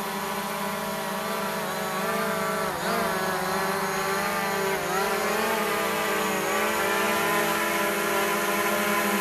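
Quadcopter drone propellers giving a steady whine, with the pitch dipping briefly twice as the motors change speed, near 3 and 5 seconds in.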